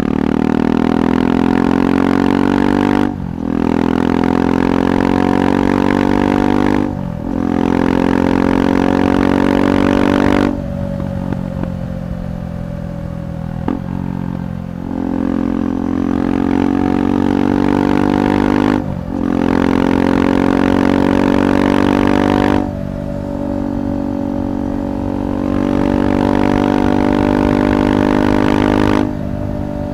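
KTM 390 Adventure's single-cylinder engine through a Red Rooster aftermarket exhaust, pulling under throttle. Its note cuts out briefly about every four seconds, as at gear changes. Near the middle it eases off, falling in pitch for a few seconds, before pulling again.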